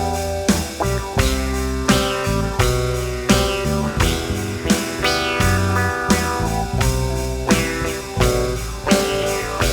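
Small string band playing an instrumental passage without vocals: guitars over a bass guitar, with a strong beat about every 0.7 s.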